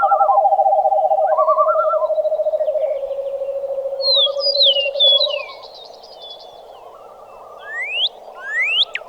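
Dawn chorus of wild animals. A loud, rapid low trill steps down in pitch and stops about five and a half seconds in, with whistled bird calls above it. After that it is quieter, with rising whistled sweeps near the end.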